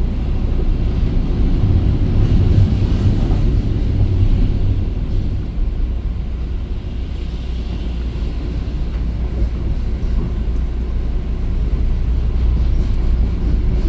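Steady low rumble of a moving EXO commuter train, heard from inside the passenger coach. A low hum swells about two seconds in and eases off by about five seconds.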